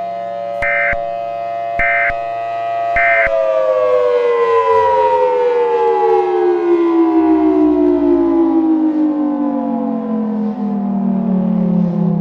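Outdoor tornado warning siren holding a steady tone made of several pitches at once. Three short, high data bursts sound over it in the first three seconds: the EAS end-of-message signal. The siren then winds down, its pitch falling slowly and steadily.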